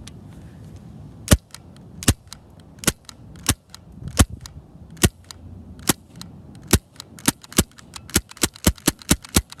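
BB pistol firing repeatedly, a string of sharp cracks. They come about one every three-quarters of a second at first, then quicken into a rapid run near the end.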